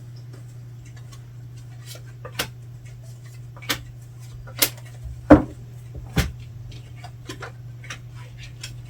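Light knocks and taps on a tabletop as tarot cards are handled: about five separate sharp taps, the loudest about five seconds in, over a steady low hum.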